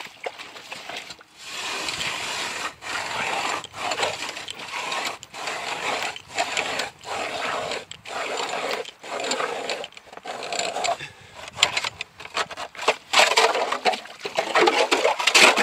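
Hand-cranked ice auger boring through lake ice. The steel blades grate and scrape in surges about once a second, one with each turn of the crank, and are loudest near the end.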